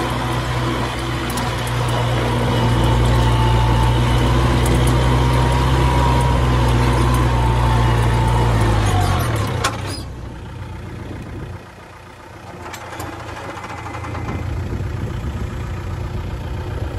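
Kubota MU4501 tractor's four-cylinder diesel engine running steadily under way, heard from the driver's seat. About nine seconds in, the engine note falls and the sound drops to a much quieter, lower running that builds up again near the end.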